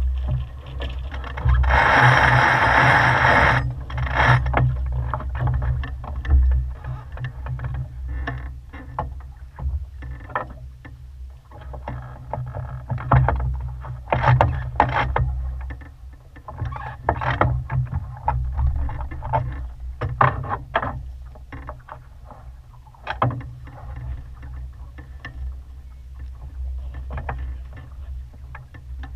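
Wind buffeting the microphone aboard a sailboat under way, with a steady low rumble, irregular knocks and splashes, and a louder rush of noise about two seconds in.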